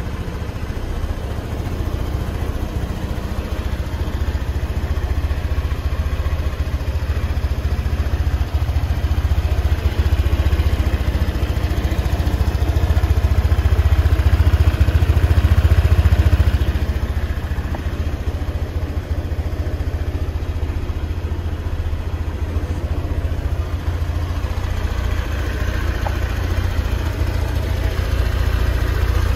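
Honda PCX125 scooter's single-cylinder engine idling steadily, swelling slightly about a third of the way through and easing back just past the middle.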